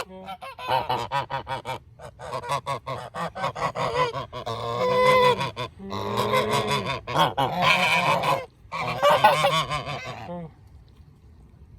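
Several domestic geese honking over and over in a loud, overlapping chorus that dies down about ten seconds in. The owner guesses the flock is excited by a neighbour's noisy metalwork.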